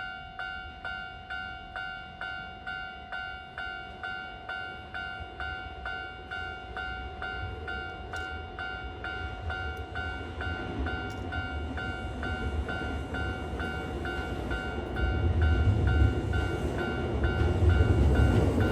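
Japanese level-crossing warning bell ringing steadily at about two strikes a second, while a Kintetsu 30000 series limited express train approaches; the rumble of its wheels on the rails grows from about ten seconds in and is loudest as it passes near the end.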